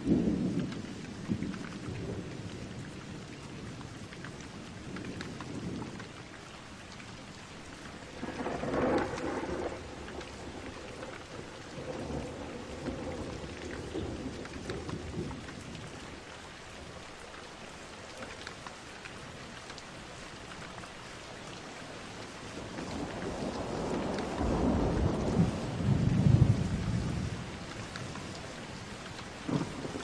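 Steady rain falling, with thunder rumbling three times. There is a short roll right at the start and another about a third of the way in. The longest and loudest roll builds and fades in the last third.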